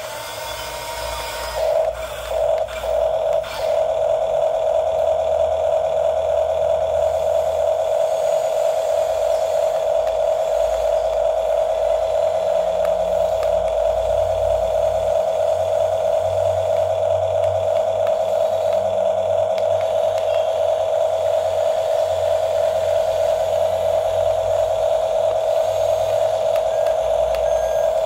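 Toy RC bulldozers' small electric drive motors and gearboxes running, a steady high whine. It comes in with a few uneven surges over the first three or four seconds, then holds level, with a shifting low rumble underneath as the tracks move on the tile floor.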